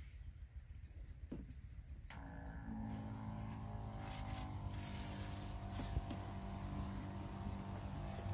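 Electric knapsack sprayer: a click about two seconds in, then its pump motor hums steadily, with a hiss of spray from the nozzle for a couple of seconds in the middle.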